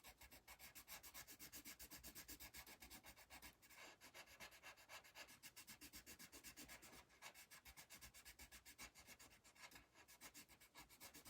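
Colored pencil scribbling on paper in quick, even back-and-forth strokes, several a second, as an area of a drawing is colored in.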